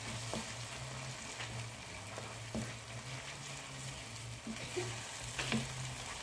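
Chili paste sizzling gently in a pan on low heat, a steady hiss broken by a few small ticks and pops, over a low steady hum.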